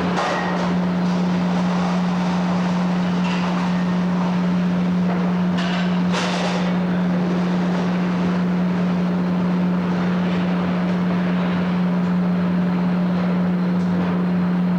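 Frick 00 sawmill running with a steady hum over a noisy mechanical clatter, with a couple of short knocks about six seconds in.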